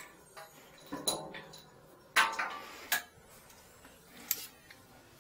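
Hard clicks and clatter from plumbing fittings, hoses and tools being handled at a toilet's wall water-supply valve. There are about five knocks, and the loudest, a little after two seconds in, rings briefly.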